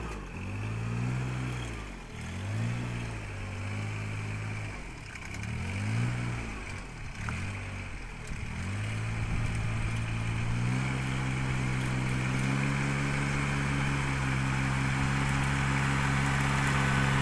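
Ride-on rice transplanter's small engine, its pitch rising and falling several times while the machine turns at the end of the paddy, then settling to a steady run about ten seconds in as it moves on planting, growing slightly louder as it comes closer.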